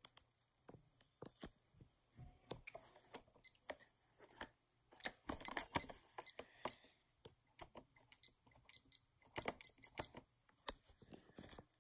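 Small digital LCD desk clock with a colour-changing backlight being handled: plastic clicks of its buttons being pressed, and two runs of short, high electronic beeps from it, one about five seconds in and another about eight seconds in.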